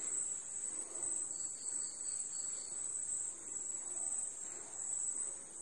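Thick prawn masala simmering in a pot at a low boil, with faint irregular bubbling and a spoon stirring through it at first. A steady high-pitched buzz runs behind it throughout and is the most prominent sound.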